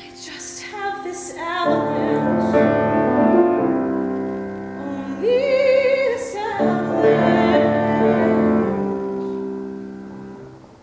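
A woman singing with piano accompaniment: piano chords struck about two seconds in and again past the middle, under a long sung note with vibrato, all dying away near the end.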